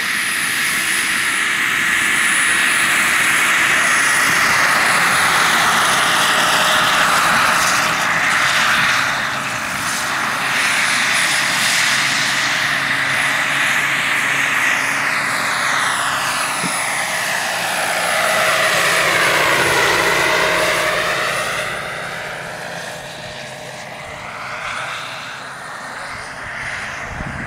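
Jakadofsky 5000 turbine engine and main rotor of a large-scale RC Bell 412 model helicopter, flying low with a steady whining hiss and a thin high-pitched whistle. The sound sweeps in pitch as the helicopter passes, then fades from about 22 seconds in as it flies away.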